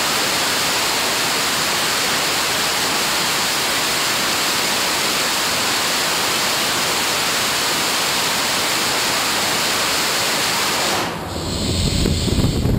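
SpaceX SuperDraco hypergolic thruster in a static test firing: a loud, steady rushing noise that cuts off suddenly about eleven seconds in, at shutdown. A lower, uneven rumble follows near the end.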